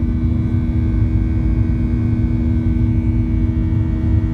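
Jet airliner engines heard from inside the cabin while climbing out just after takeoff: a loud, steady rumble with a constant two-note hum over it.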